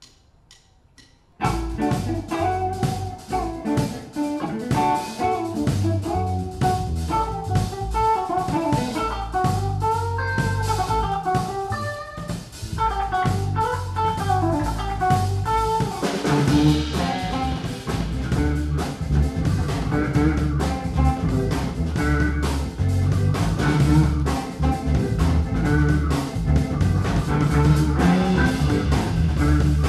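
A live jazz-funk band plays an instrumental: an electric guitar melody over drum kit, bass guitar and keyboard. The band comes in together about a second and a half in, after a few light clicks, and the drums and cymbals get heavier about halfway through.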